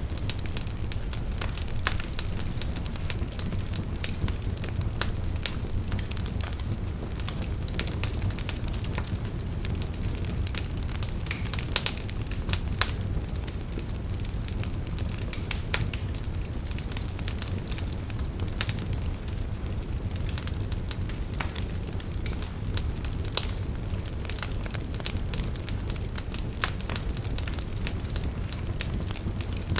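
Wood fire burning: a steady low rumble of flame with frequent sharp crackles and pops at irregular intervals.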